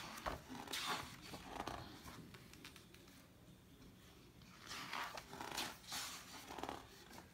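Paper pages of a large illustrated book being handled: a cloth rubbed over a page in the first two seconds, then a page rustling as it is turned about five to seven seconds in.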